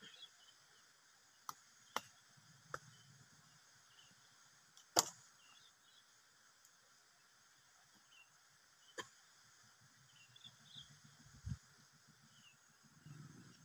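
Quiet forest ambience: faint scattered high chirps over a steady faint insect hiss, broken by about six sharp snaps, the loudest about five seconds in, with rustling through undergrowth near the end.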